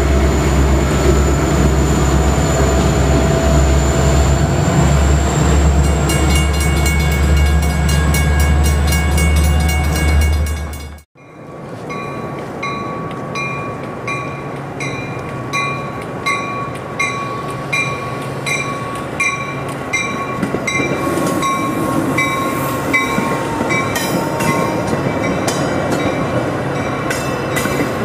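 Passenger-train diesel locomotive running close by with a heavy low rumble, which cuts off abruptly a little after ten seconds. A train then rolls past with a steady clicking of wheels over rail joints, about three clicks every two seconds, over a faint thin steady tone.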